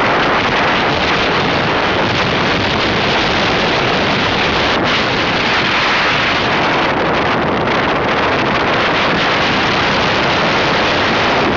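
Steady, loud wind rush on the microphone of a motorbike riding along at speed, drowning out the engine and road noise.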